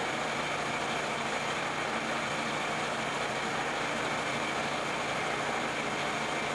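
Vertical milling machine running steadily, its end mill cutting the pocket's corners in a block held in the vise.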